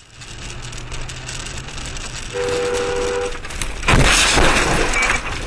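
Road noise from a car on a snowy road, a car horn sounding for about a second, then a loud crash about four seconds in as the car skids round.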